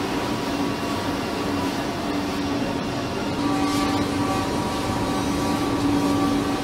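Machinery noise in a car assembly plant: a steady din with a low hum, joined about three and a half seconds in by a steady higher whine.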